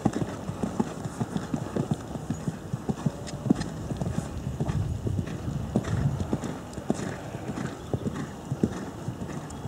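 Hoofbeats of a horse cantering on a sand arena surface: a continuous, uneven run of several thuds a second.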